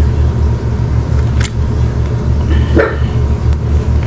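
Steady low hum throughout, with light clicks and rustles of fingers working fluorescent vinyl wrap and knifeless cutting tape on a helmet shell. A short louder sound comes about three seconds in.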